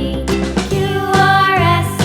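Cheerful children's background music with a steady beat and a melody line that slides down near the end.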